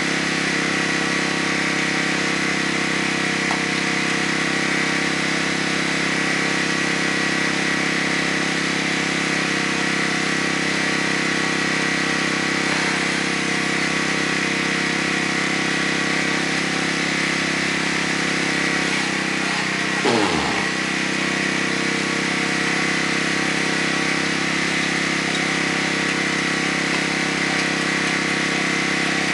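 A small engine running steadily at one speed, with a brief sound falling steeply in pitch about twenty seconds in.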